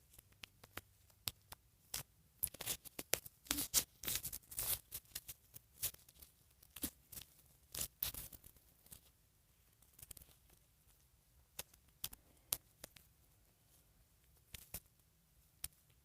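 Handling noise from a doll and its clothes being dressed: irregular small clicks and short rustling, scraping spurts of fabric and plastic. The spurts come thickest in the first half and thin out to scattered clicks later.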